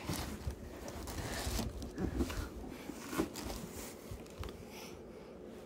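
Handling noise: a cotton dust bag rustling and a few soft knocks as a boot in its bag is lifted out of a cardboard shoebox, quieter over the last second or two.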